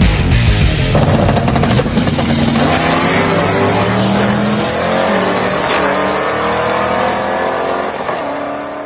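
Heavy rock music cuts off about a second in, giving way to a car engine accelerating hard, its pitch climbing steadily, then fading out at the end.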